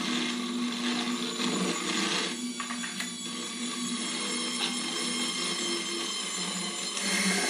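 Steady motor whirring with several held tones over it, and a brief rattly crackle about two and a half to three seconds in.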